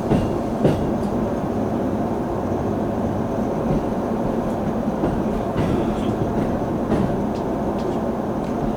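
Commuter train running, heard from inside the passenger car: a steady rumble of wheels on rail with a few short, sharp clicks.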